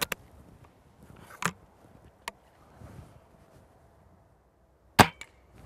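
Weihrauch HW99S break-barrel spring air rifle being cocked and loaded, with a few short clicks in the first second and a half. About five seconds in it fires once with a sharp crack, and a faint tick follows a moment later as the pellet strikes the tin target.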